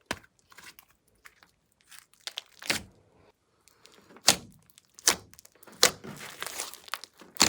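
Glossy slime with clay mixed in, handled by hand: it is squeezed and stretched, giving a string of sharp pops and sticky clicks with fainter crackling between them.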